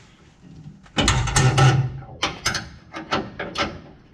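Clatter of hand tools and hardware being handled during a transmission install: a loud rattling clatter about a second in, then several sharp separate clicks and knocks.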